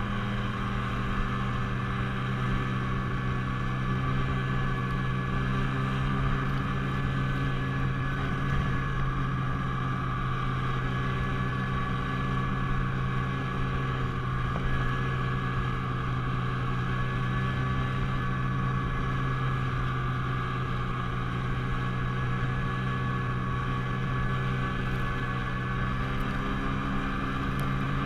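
Snowmobile running at a steady cruising speed along a packed-snow track: a constant engine drone over the rushing noise of the ride.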